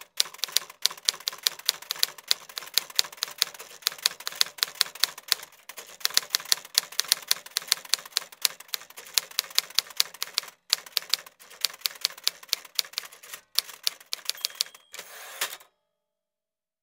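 Rapid sharp clicks in quick irregular runs, with short breaks, ending with a brief steady rasp and then stopping.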